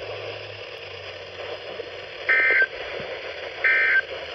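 Weather radio hiss, then about two seconds in, two short warbling digital data bursts about a second apart. This is the Emergency Alert System end-of-message code that closes the weekly test.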